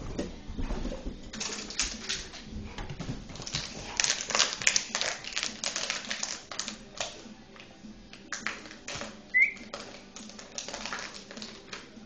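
A St Bernard puppy chewing a plastic water bottle: irregular crackling and crunching of the plastic, with a brief high squeak about nine seconds in.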